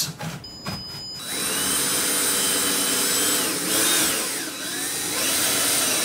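Cordless drill driving a screw up through a wooden board into a ceiling stud, the motor running for nearly five seconds with a whining pitch that dips midway and then rises again. A few small clicks of handling come before it starts, about a second in.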